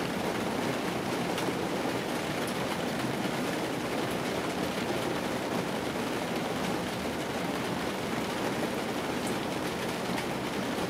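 Rain falling on the roof and windshield of an old car, heard from inside the cabin: a steady, even hiss with a few faint ticks of single drops.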